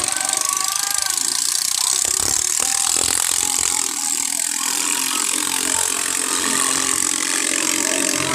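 Ketinting longtail boat engines running, a dense mechanical rattle with a few sharp clicks about two to three seconds in.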